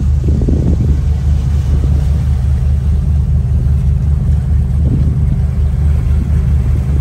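A cruising motorboat's engines running steadily under way, heard as a deep, even rumble.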